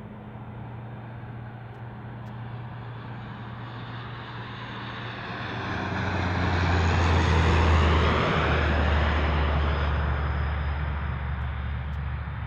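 Jet aircraft noise that swells over a few seconds to a peak about halfway through and then slowly fades, over a steady low hum.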